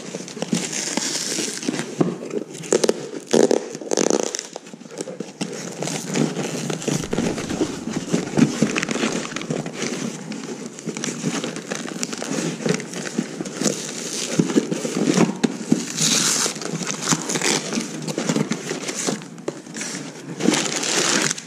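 Paper and cardboard unboxing noise: packing tape peeled off brown wrapping paper, then a cardboard box opened and crumpled kraft packing paper crinkling and rustling as hands dig through it, with louder bursts of crinkling now and then.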